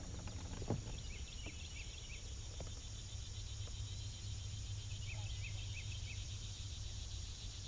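Outdoor insect chorus: a steady, pulsing high drone, with two quick runs of about four short chirps over a steady low hum.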